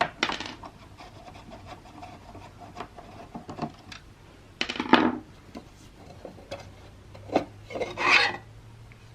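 Plastic parts of a defibrillator being handled during disassembly: scattered small clicks and rubbing, with two louder scrapes about five and eight seconds in.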